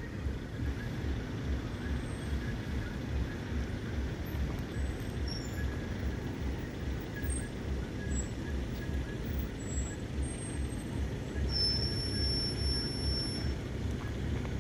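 Diesel locomotive pulling a freight train away from the station, heard from afar as a steady low rhythmic throb, with wind buffeting the microphone.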